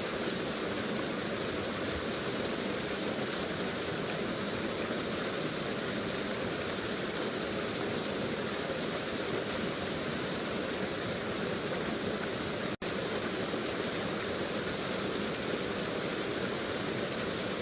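Waterfall sound effect: a steady rush of falling water that cuts out for an instant about thirteen seconds in.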